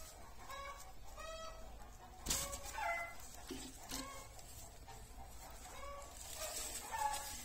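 Short, repeated animal calls throughout, with a sharp knock a little over two seconds in and hay rustling near the end.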